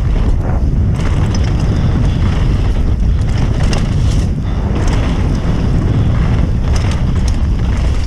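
Wind buffeting the microphone and tyre rumble as a mountain bike rolls fast down a dirt trail, with scattered clicks and rattles from the bike.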